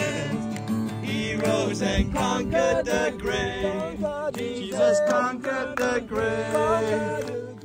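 Background music: a song with a man singing a melody over instrumental backing.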